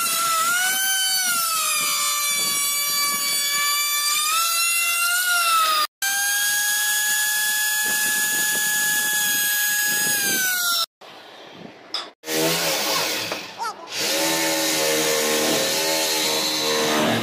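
Makita 3600H plunge router with a 45-degree chamfer bit cutting the edge of a veneered panel: a loud, high motor whine that wavers slightly as it cuts, then a second run whose pitch drops near the eleven-second mark. From about twelve seconds a lower, steady machine hum of another kind takes over.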